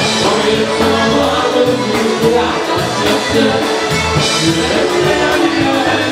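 Polka band music with a steady dance beat.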